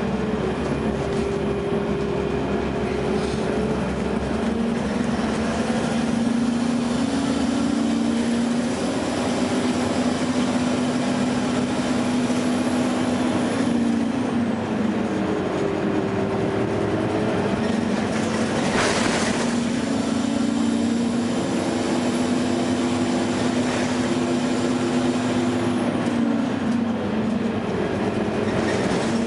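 Interior ride sound of a 2009 Gillig Low Floor hybrid bus with a Cummins ISB diesel and Allison EP40 hybrid drive: a steady drivetrain drone with whining tones that fall and rise again twice as the bus slows and pulls away. There is a brief hiss about two-thirds of the way through.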